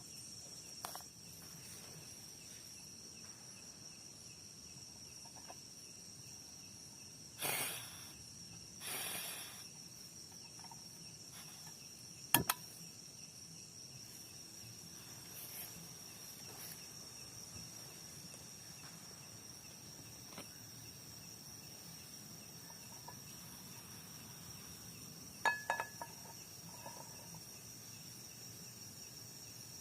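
Night insects trilling steadily at one high pitch, with two brief rustling swells and, about twelve seconds in, a single sharp knock, then a few small clicks near the end.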